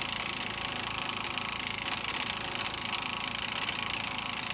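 Nitrocat air impact wrench hammering steadily on a 24 mm nut, a continuous rapid rattle of blows as it spins the nut off the lower strut-assembly bolt.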